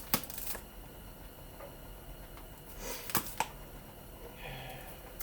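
A few light clicks and taps from handling scrap electric-fan motor parts, with a brief low hum about four and a half seconds in.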